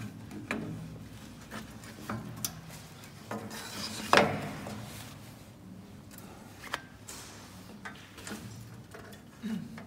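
Square wooden blanks being stacked by hand into the steel loading hopper of a CNC wood lathe's auto-feeder: scattered knocks and scrapes of wood on wood and on the frame, the loudest knock about four seconds in.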